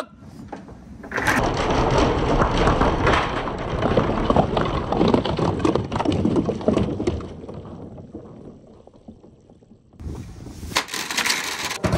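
A bucketful of orange dragon balls rattling and clattering down a wooden pegboard slope and splashing into a tub of water, a dense run of small knocks that dies away over several seconds. A new short burst of clattering follows near the end.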